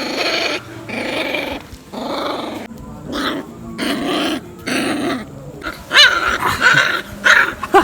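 Kombai puppies growling in a run of short, rough growls, then giving sharp, high yelps from about six seconds in.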